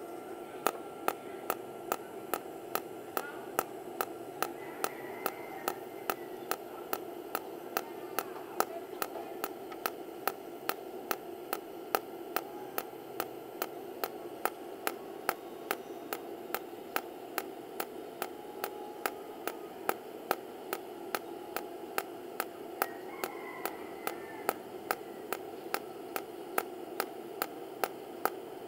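Tenya TIG250PC cold TIG welder spot-welding in fast pulse mode: a very regular crackle of short arc pulses, about three a second, over a steady hiss.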